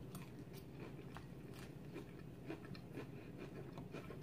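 Faint chewing of a mouthful of salad, with small scattered crunchy clicks.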